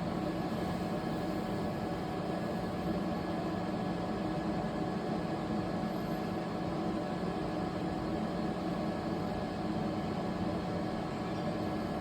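Steady machine hum with a few constant tones over a low noise bed, unchanging throughout: a running machine's motor or cooling fans.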